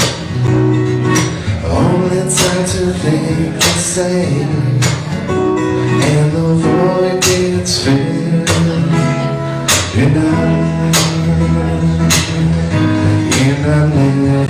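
A man singing a song with acoustic guitar accompaniment.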